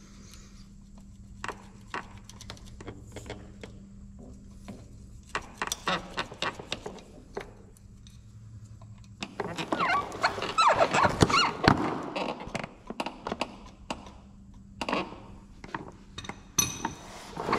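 Hand tools clicking and clanking on a rounded-off drain plug under a truck, with a denser, louder run of metal knocks and clatter about nine seconds in.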